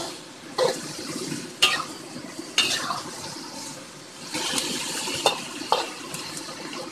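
A metal spatula scraping and knocking against a wok while stir-frying bitter melon, egg and tomato, over a steady frying sizzle. Several sharp scrapes stand out, the loudest about half a second, a second and a half, two and a half and five seconds in.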